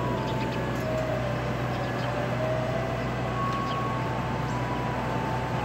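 Ice cream truck idling at the curb: a steady engine hum with a low drone, and a few faint held tones above it.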